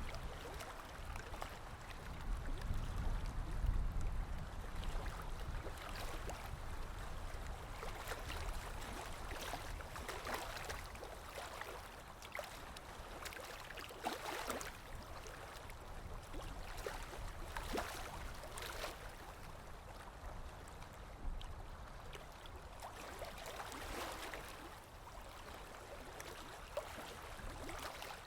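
Small waves lapping and splashing irregularly at the water's edge, with a low rumble swelling a few seconds in.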